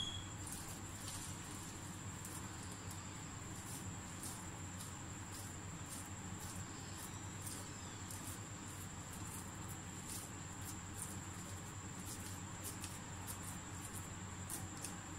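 Hands pressing and patting soft, wet minced chicken into patties, giving faint irregular squelches and light slaps. Under it runs a steady high-pitched whine and a low hum.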